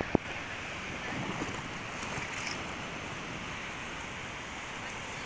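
Sea waves washing on the beach in a steady rush, with wind buffeting the microphone. A single sharp click comes a fraction of a second in.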